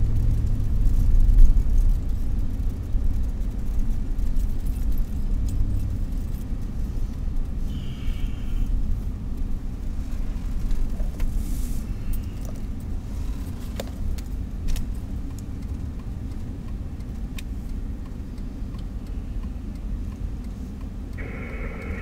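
Car cabin noise while driving: a steady low rumble of engine and tyres on the road, heaviest in the first couple of seconds and easing off later, with a few light clicks and jingles.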